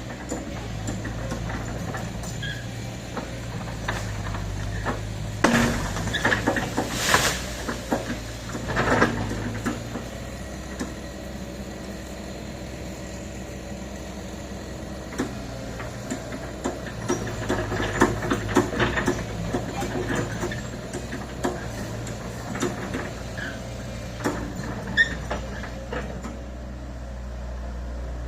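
Excavator's diesel engine running steadily, with spells of metallic clanks and knocks and short hissing bursts as the machine works.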